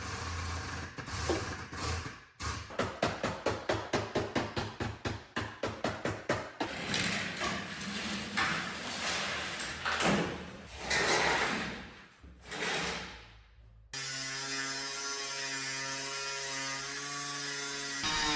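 Workshop tool sounds: a fast, even run of about four or five clicks a second like a ratchet, then uneven rushing swells of a tool at work, then, after an abrupt cut, a steady machine hum.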